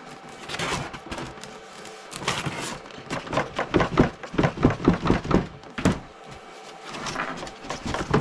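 Large cardboard box being handled and worked open: a run of quick scrapes, rubs and knocks of cardboard, with a sharper knock about six seconds in.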